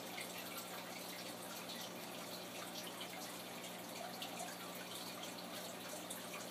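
Aquarium water trickling and dripping, with many small irregular ticks over a steady low hum.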